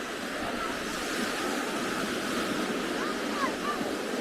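Ocean surf breaking and washing up on a sandy beach, a steady rush of waves.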